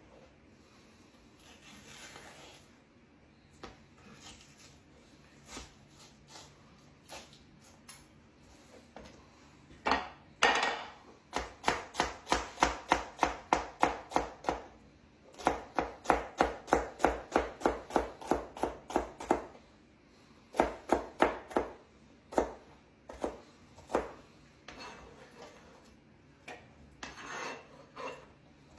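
Knife chopping celery on a cutting board in quick runs of even strokes, about four a second, starting about ten seconds in with a short pause midway, then a few scattered cuts near the end.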